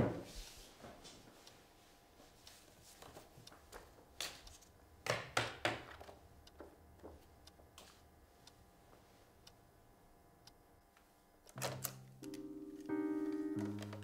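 A thud, then a quiet room with a few short knocks and paper rustles from handling a notebook at a desk; near the end, music with low keyboard notes stepping up and down comes in.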